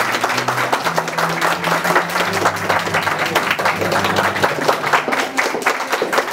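A room of people applauding, with steady, continuous clapping.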